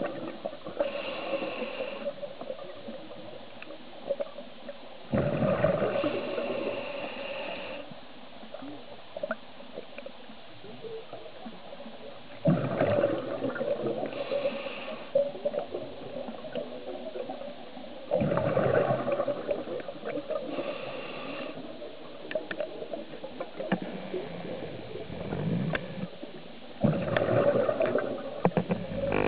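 A scuba diver breathing through a regulator underwater: a rumbling burst of exhaled bubbles about every six seconds, four times, with a fainter hiss between breaths.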